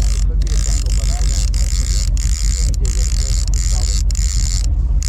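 Steady low rumble and hiss of a charter fishing boat under way at trolling speed, with faint voices in the background.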